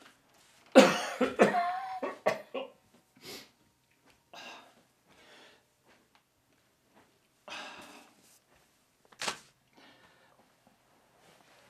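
An elderly man coughing: a loud fit of coughs about a second in, then a few shorter, separate coughs and breaths over the following seconds.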